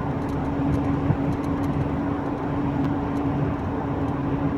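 Mark III VW Golf driving at about 50, with road and tyre rumble under a steady whine. The whine is the sign of a worn rear wheel bearing.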